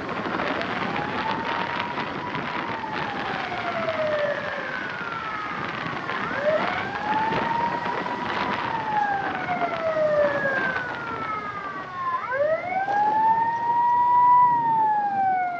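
Ambulance siren wailing in slow cycles, each rising, holding and then gliding down over several seconds, about three cycles six seconds apart. Street traffic noise runs underneath.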